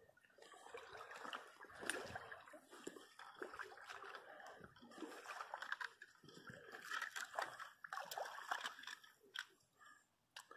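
Irregular splashing and sloshing of water with scattered sharp clicks, starting about half a second in, while a hooked fish is played from the river.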